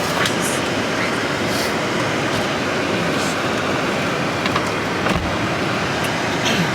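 Steady rushing noise of blizzard wind blowing across the microphone, with a few faint knocks.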